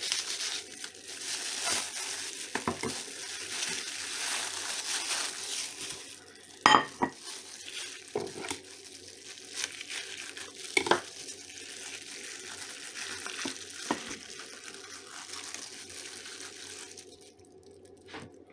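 Thin plastic food bag crinkling and rustling as it is cut open with a kitchen knife and peeled off a piece of marinated salo, with a few sharp taps along the way. The crinkling dies away near the end.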